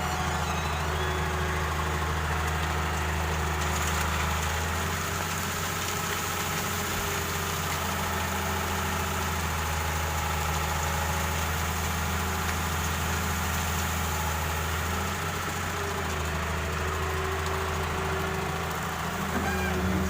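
Excavator's diesel engine running steadily, a low hum whose note shifts a few times as the machine works.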